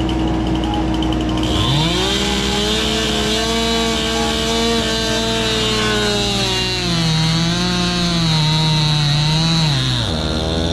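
Stihl 500i chainsaw revving up to full throttle about one and a half seconds in and held there. Its pitch drops and wavers for a few seconds partway through, then falls back near the end.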